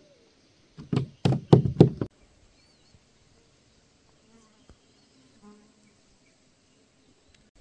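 A quick run of about five loud knocks on the kayak, close to the camera, lasting about a second, then only faint insect-like chirps.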